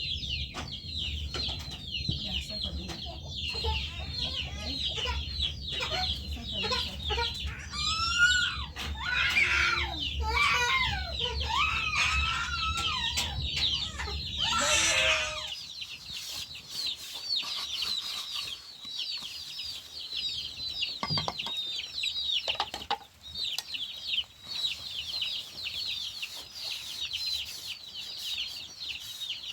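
Chickens calling: a steady stream of short, high peeps, with louder clucks and squawks from about a third of the way in to the middle. A low hum underneath cuts off about halfway.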